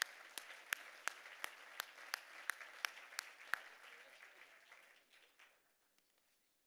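Audience applauding, with one set of sharp, close claps standing out about three times a second; the applause fades away about five seconds in.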